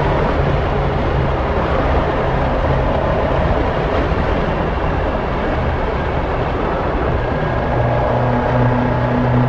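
Caterham Super Seven 1600's engine running at a steady pace, its note holding fairly even, over a heavy rush of road and wind noise.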